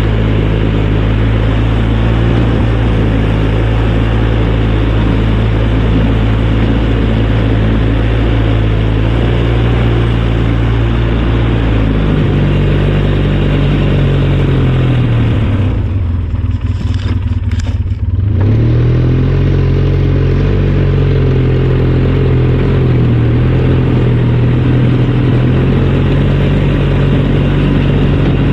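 Four-wheeler (ATV) engine running close by under way. Its pitch rises about twelve seconds in, the engine note drops off for about two seconds past the middle, then picks back up and runs steadily.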